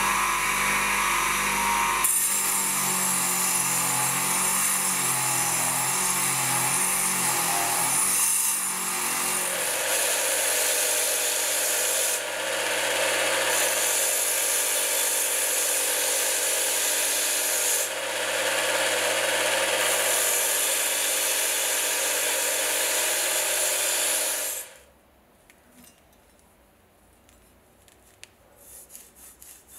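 Electric bench grinder running with a rusty steel bayonet blade worked against its spinning wheel, grinding off rust. About ten seconds in, a belt grinder takes over, sanding the blade with a steady hiss over the motor hum, with two brief dips. It stops about 25 seconds in, leaving near silence with a few faint clicks of handling.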